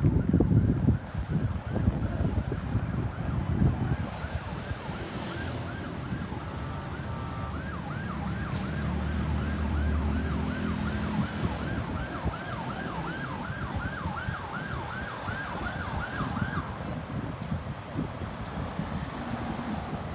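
Ambulance siren on a fast yelp, its pitch sweeping up and down about two to three times a second. It starts faint, grows louder as the vehicle passes, and cuts off suddenly about 17 seconds in, over wind on the microphone and road noise.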